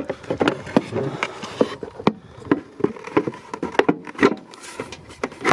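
Irregular clicks and knocks of hard plastic parts being handled and fitted, from working on a van's turn-signal light housing.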